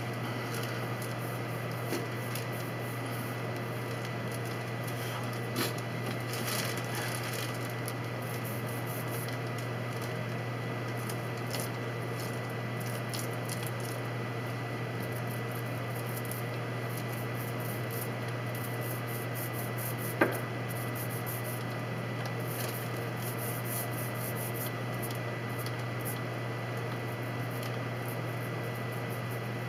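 Paintbrush strokes laying wet paint on wooden boat floorboards: soft, irregular swishing over a steady low hum, with one sharp click about twenty seconds in.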